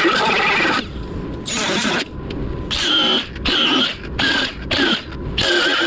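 Power wire wheel brushing rust off car body steel in a series of short bursts, its pitch shifting as the wheel is pressed on and lifted off the metal.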